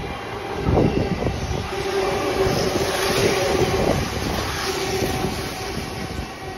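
JR East E491 'East i-E' track-inspection train running through the station close by. It makes a rumble and clattering from the wheels on the rails, strongest about a second in, with a steady hum as the cars pass. The sound eases off slightly as it moves away near the end.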